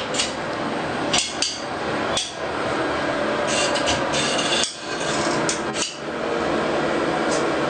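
Hand caulking gun working silicone into a shower door's metal glass track: irregular clicks of the trigger and plunger with scraping and rubbing, a cluster of clicks about a second in and another around four seconds in.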